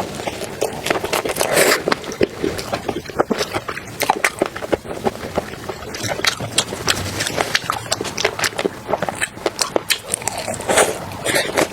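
Close-miked eating sounds: chewing with a dense run of quick, irregular wet clicks and crunches throughout, as in an ASMR seafood mukbang.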